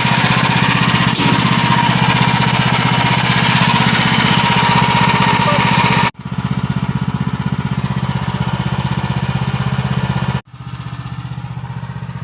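Small petrol engine of a portable band sawmill running steadily with a fast, even pulsing beat and a thin steady whine. The sound cuts off abruptly twice, about six seconds in and near the end, and comes back quieter each time.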